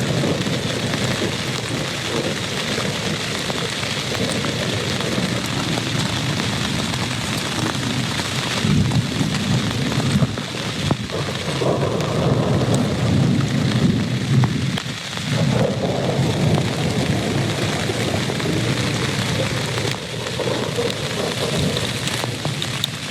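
Steady heavy rain, with thunder rumbling low in long rolling swells through the second half.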